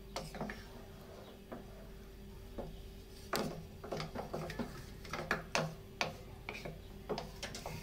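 Spatula stirring rice and milk in a metal pot, with scattered light knocks and scrapes against the pot's sides, more frequent about halfway through.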